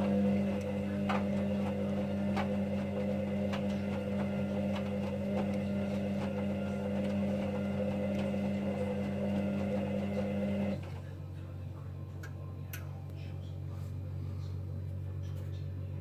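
Hoover Dynamic Next front-loading washing machine tumbling a wet load: the drum motor runs with a steady hum while the clothes knock and slosh in the drum about once a second. The motor cuts off suddenly about eleven seconds in, leaving a low hum and a few faint clicks as the drum rests between turns.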